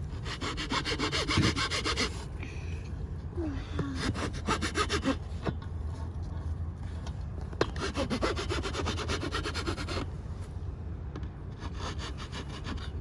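Hand file rasping back and forth on a spear to sharpen it. The strokes come in quick runs of about two seconds with short pauses between them.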